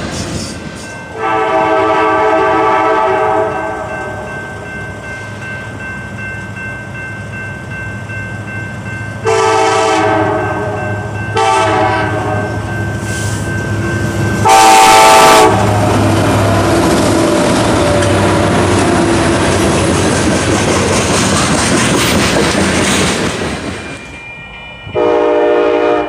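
Nathan K5LLA five-chime locomotive horn sounding a series of blasts: a long one, then after a pause two long and one short, with the loudest about halfway through. The locomotive then rumbles past, and another horn blast comes near the end.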